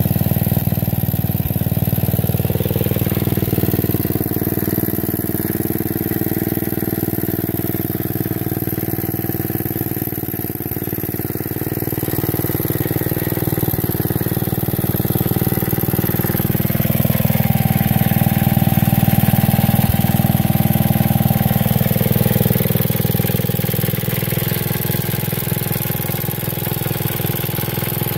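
The Wisconsin air-cooled engine of a 1957 Beaver garden tractor running steadily at idle, a little louder for a few seconds past the middle.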